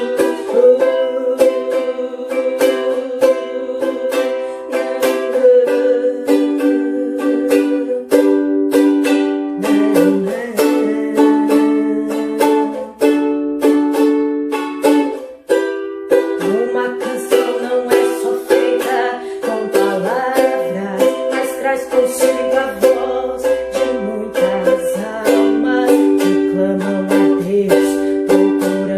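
Ukulele strumming the chords of a hymn in a steady rhythm, several strokes a second, with the chord changing every second or two.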